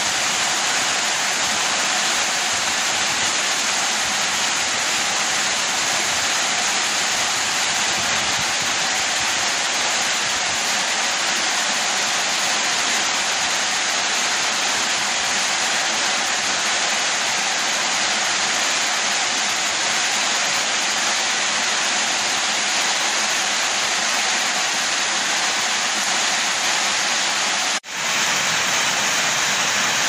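Heavy rain falling steadily on leaves and ground, an even, dense hiss. It cuts out for an instant near the end.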